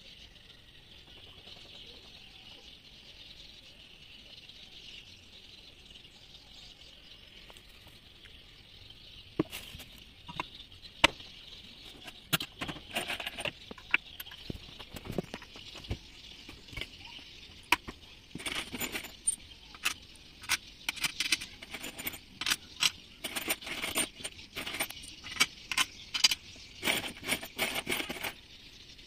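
Irregular metallic clinks and taps of bolts, tools and cast-aluminium crankcase parts being handled and fitted while a Yamaha 40 hp outboard powerhead is assembled. They start about a third of the way in and grow denser through the second half, over a steady high hiss.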